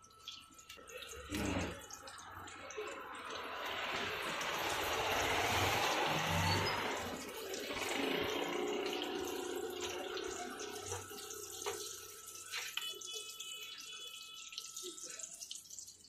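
Hot oil sizzling as batter-coated potato chops deep-fry in a wok. The sizzle swells over a few seconds, is loudest about six seconds in, and then eases to a steadier hiss.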